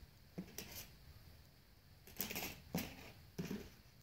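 A few faint, short taps and scrapes as thin screen panels, a metal backing sheet and glass sheets, are handled and set down on a wooden table.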